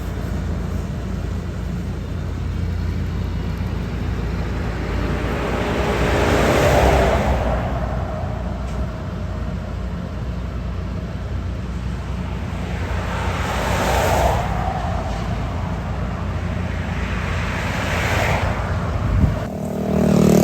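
A motor vehicle engine running steadily with a low rumble. It swells louder about 7, 14 and 18 seconds in. A short sharp sound comes near the end, as the low rumble drops away.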